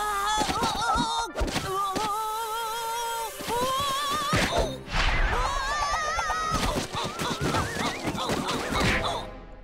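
Cartoon sound effects of a body tumbling and sliding down a sand dune: a run of thuds and thunks, with a wavering, warbling tone running through them and background music.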